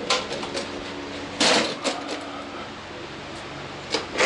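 A few sharp knocks and short scraping rustles of parts and tools being handled, the loudest about a second and a half in and another near the end, over a faint steady hum.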